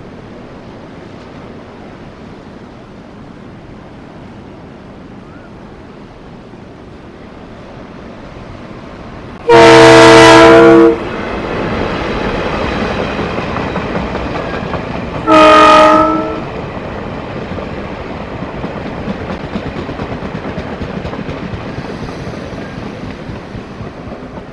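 Passing passenger train sounds its horn in two loud blasts, the first about a second and a half long and the second shorter, about six seconds later. Under the horn is the steady rumble of the train on the rails, which builds as it comes by.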